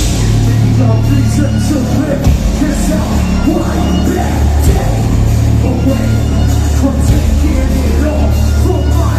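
Heavy metal band playing live and loud: distorted guitars, bass and drums come crashing in together right at the start after a lone guitar part, with vocals over the top.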